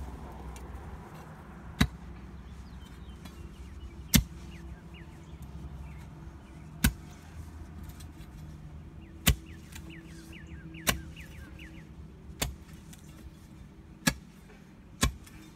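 Sharp strikes of a digging tool into soil and roots, about eight blows a second or two apart, over a low steady hum.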